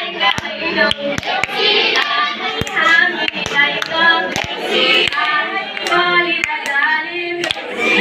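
Voices singing a song together, with sharp hand claps keeping time throughout.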